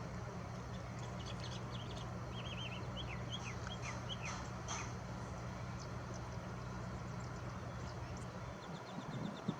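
Eastern kingbird calling: a run of high, sputtering twittering notes from about a second in until about five seconds, then a few fainter chips, over a steady low hum.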